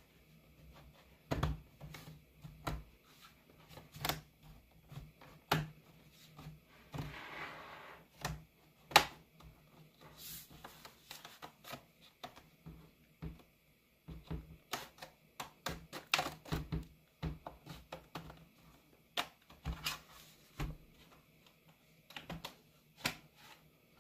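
Small hand tools clicking, tapping and scraping against a laptop's plastic case during disassembly, in irregular sharp clicks with a brief scrape about seven seconds in.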